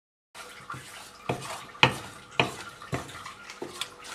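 A split second of dead silence where the recording cuts, then a steady hiss with a series of sharp knocks, about six of them roughly half a second apart.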